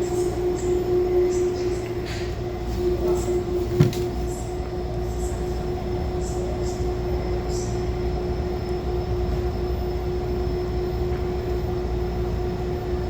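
Steady electrical hum and low rumble inside a CPTM Série 2000 electric train car, with one constant tone running throughout. There are a few faint ticks and one sharp knock about four seconds in.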